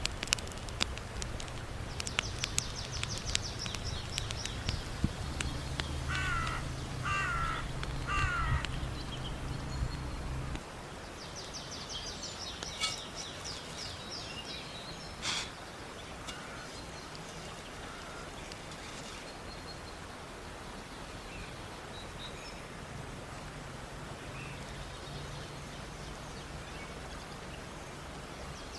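Birds calling in woodland: repeated high, rapid trills, and three short calls in a row about six to eight seconds in. Sharp clicks and a low rumble fill the first ten seconds, the rumble stopping suddenly, and a single sharp crack comes near the middle.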